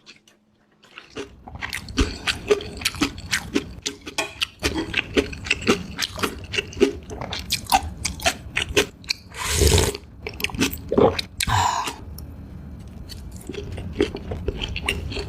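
Close-miked eating of spicy noodles: fast, irregular wet mouth clicks and smacks of chewing, with two brief, louder rushes of noise about two-thirds of the way through. The clicking thins out near the end.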